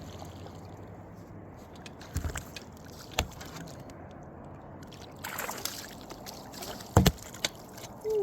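Knocks and thumps in a small fishing boat, about three over several seconds with the loudest near the end, plus a brief splashing rustle midway, as a caught crappie is handled.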